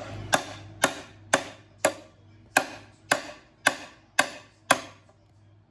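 Hammer striking a pry bar wedged behind a small-block Chevy 350's timing cover: nine sharp blows, about two a second, each ringing briefly, with a slightly longer pause after the fourth. The cover is stuck and does not come free.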